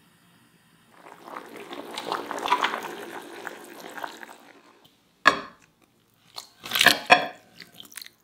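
Saucepan of water with potato cubes bubbling at a rolling boil. About five seconds in it gives way to a few short, sharp splashes and knocks as the boiled potato cubes go into a glass bowl of cold water.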